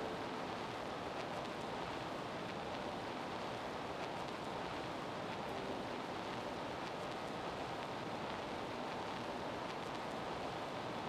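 Steady, even hiss-like background noise with no distinct events.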